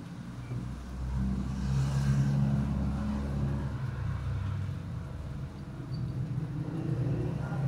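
Low, steady engine hum of a running motor vehicle, swelling about a second in and easing off around five seconds before rising again near the end.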